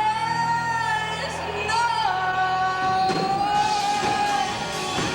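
Live band playing with a singer holding long notes: one note drawn out for about two seconds, a short lift, then a slightly lower note held for over two seconds. The drums and band grow fuller about three seconds in.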